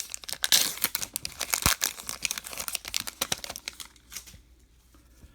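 Foil wrapper of a baseball card pack being torn open and crinkled: a dense run of crackles that dies down about four seconds in.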